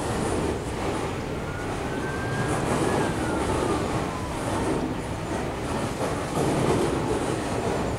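Hopper wagons of a freight train rolling slowly past on a curve: a steady rumble of wheels on rail. A faint wheel squeal rises a little, then falls in pitch during the first half.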